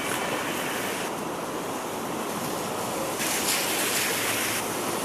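Steady hiss of city street noise in wet snowfall, with a brighter hissing swell for about a second and a half, starting a little past three seconds in.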